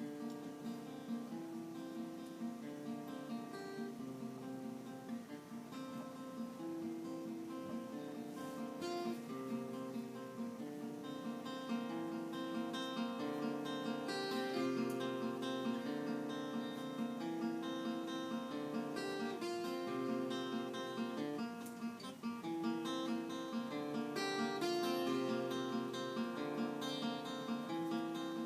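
Music led by acoustic guitar, strummed in a steady rhythm, with a melody of held notes over it; it grows a little louder partway through.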